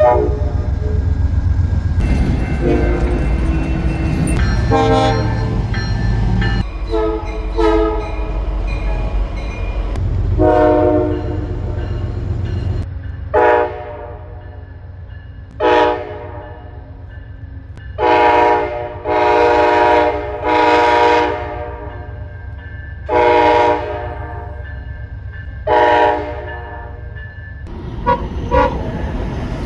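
Train horns sounding in a series of blasts, some short and some held for a second or two, over the low rumble of a passing train. Several clips follow one another with abrupt cuts, and the horn blasts come thickest in the second half.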